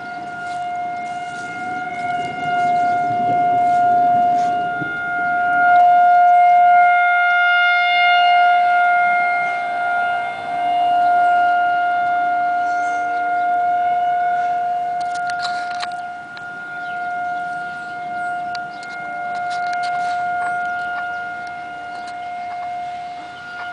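Outdoor tornado warning sirens wailing on one steady pitch, swelling and fading in loudness every few seconds: the warning for an approaching tornado.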